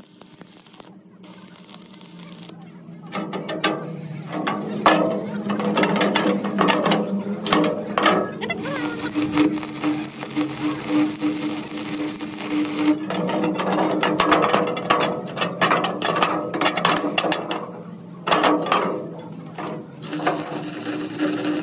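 Stick welding on steel plate: the arc crackles with rapid sharp pops and a hiss that is steadiest in the middle, over a steady low hum.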